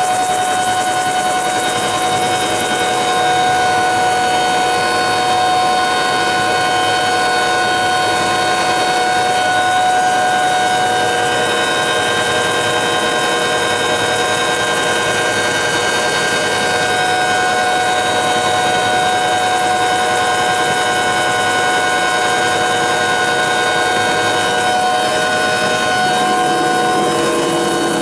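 Helicopter in flight heard from inside the cabin: a steady rush of rotor and engine noise with a steady whine of several high tones over it.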